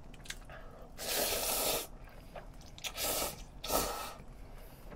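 Cold bibim-myeon noodles being slurped into the mouth: one long hissing slurp about a second in, then two shorter slurps around three and four seconds in, with faint clicks between.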